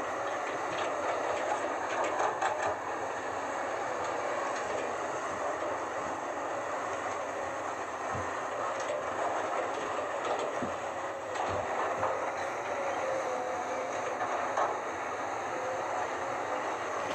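Komatsu PC200-8 hydraulic excavator working: a steady run of its six-cylinder diesel engine and hydraulics with a faint whine, and a few faint knocks as it digs and loads soil.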